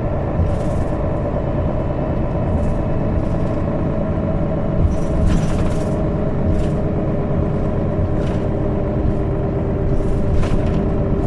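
Interior of a Mercedes-Benz Citaro O530 city bus on the move: steady engine and drivetrain rumble with a constant whine, and short hissing or rattling sounds several times.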